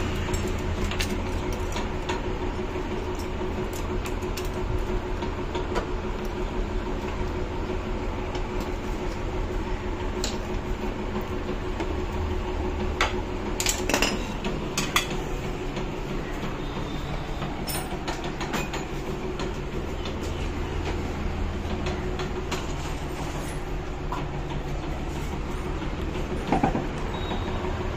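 Hero Xtreme 200 motorcycle's single-cylinder engine idling steadily, with a few sharp metallic clinks about halfway through and again near the end.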